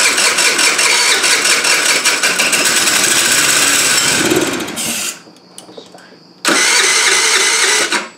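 TaoTao scooter's electric starter cranking the engine for about five seconds, then again for a second and a half after a short pause, without the engine settling into running. The owner suspects a fuel delivery problem, maybe a fuel pump that is not flowing enough fuel.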